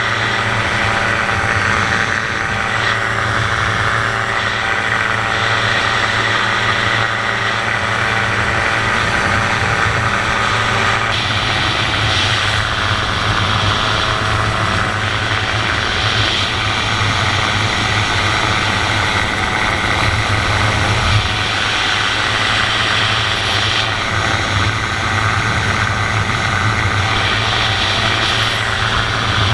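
Dominator gyroplane's engine and pusher propeller running steadily in flight, heard from the open cockpit with wind noise over it.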